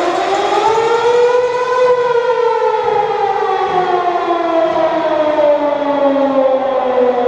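A siren winds up to its top pitch over about two seconds, then slowly winds down.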